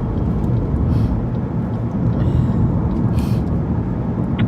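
Steady road and engine rumble heard from inside a moving car's cabin, with a few brief faint hisses.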